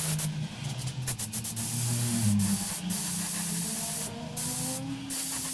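Gravity-feed paint spray gun hissing as it sprays base coat onto metal hinges. The spray breaks off briefly twice near the end as the trigger is released and pulled again.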